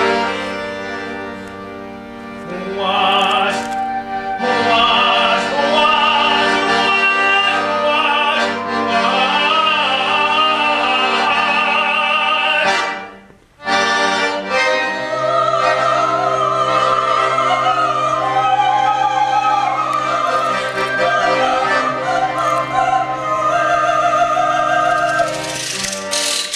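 An opera chorus singing long, wavering lines over a held chord. The music breaks off briefly about halfway through and starts again over a new, lower held note.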